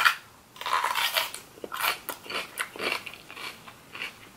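A person biting into a raw yellow bell pepper with a loud crunch, then chewing it in short, irregular crunches, about two or three a second.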